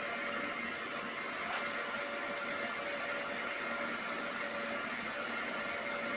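Small milling machine running steadily: an even motor-and-spindle whir with a faint constant whine.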